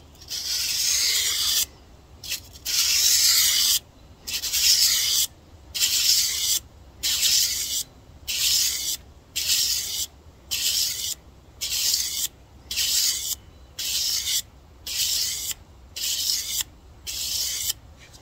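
Knife edge stroked along abrasive sandpaper wrapped tight on a flat block, about fifteen scraping strokes alternating between the two sides of the blade. Each stroke is a hiss with a short pause after it, the strokes getting shorter and more even as they go.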